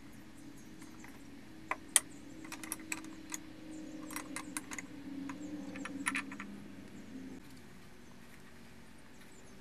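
Small metallic clicks and taps of a scroll chuck fitted with 4-inch jaws being tightened with its chuck key, a couple of sharp clicks about two seconds in, then a quicker run of clicks, over a low hum that stops near the end.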